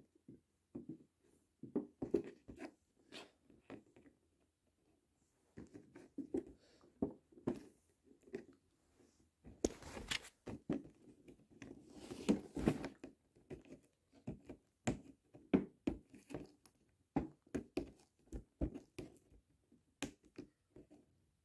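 Fingernails scratching and picking at tape seals on a cardboard figure box, with irregular small clicks, scrapes and rustles as the box is handled. A couple of longer scraping stretches come around the middle.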